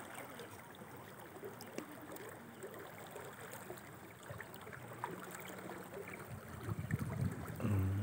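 Steady rush of a muddy river swollen with rain water, flowing fast past the bank. A low pitched hum starts faintly about five seconds in and grows louder right at the end.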